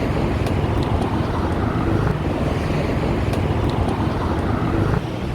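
Steady road traffic noise, a low rumble of engines and tyres in congested traffic, with wind buffeting the microphone of a moving bicycle.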